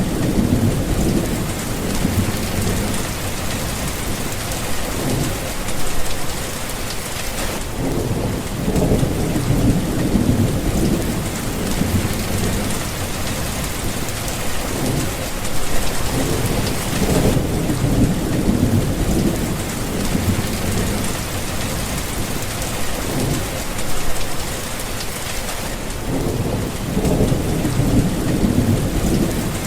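Heavy rain falling as a steady hiss, with low rolls of thunder swelling and fading every few seconds.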